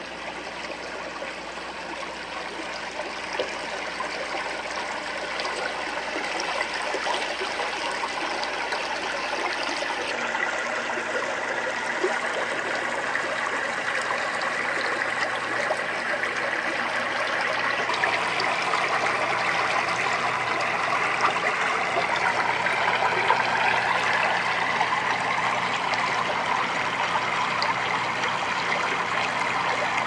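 Running water trickling and splashing steadily, like a stream, swelling gradually over the first several seconds.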